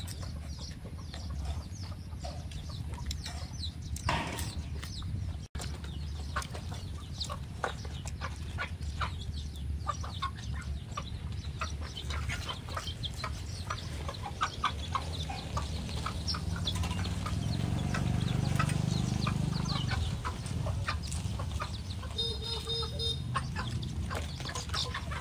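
Domestic chickens clucking on and off in short scattered calls.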